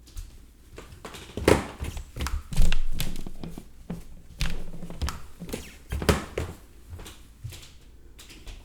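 Wooden stairs creaking and knocking under footsteps: a run of uneven thuds, some with short low creaks, the loudest about two and a half seconds in.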